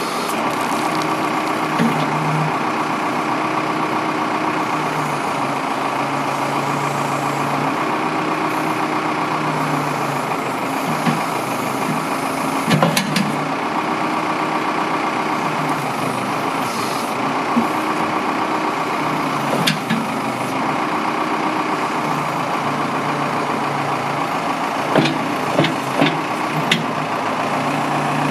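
Case 580M backhoe's four-cylinder diesel engine running steadily, its low note shifting every few seconds. Several short sharp clanks come through it, around the middle and again near the end.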